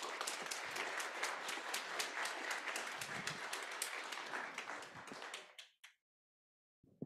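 Congregation applauding: many hands clapping steadily, dying away about five and a half seconds in.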